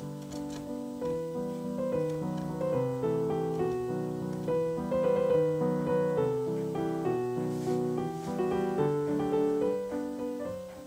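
Background piano music, a gentle melody of single notes and chords, fading out near the end.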